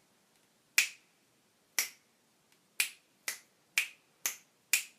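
Finger snaps, seven in all: three about a second apart, then the pace doubles to about two a second for the last four.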